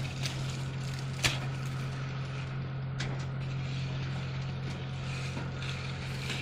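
Concrete pump's engine running with a steady low hum. A sharp click comes about a second in and a fainter one about three seconds in.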